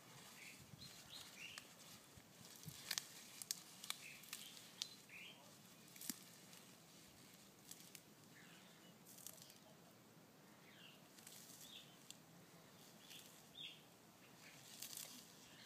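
Near silence broken by scattered faint clicks and crunches as a Galapagos giant tortoise bites and chews leaves, with faint short bird chirps now and then.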